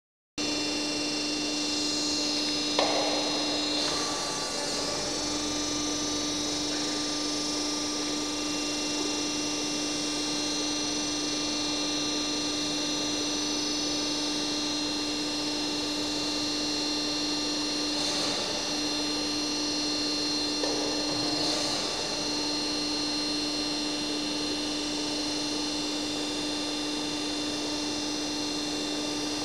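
Trumpf Trumatic 120 Rotation turret punch press switched on and idling with a steady hum, not punching. A sharp click comes about three seconds in, and a few brief, fainter noises follow later.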